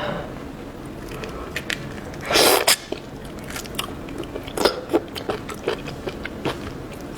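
A person biting and chewing raw marinated black tiger shrimp, with many short clicks and one louder, noisy burst of about half a second roughly two and a half seconds in.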